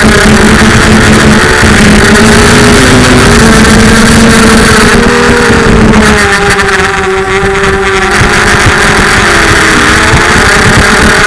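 FPV quadcopter's brushless motors and propellers whining loudly, the pitch shifting up and down with the throttle and easing off briefly about six seconds in.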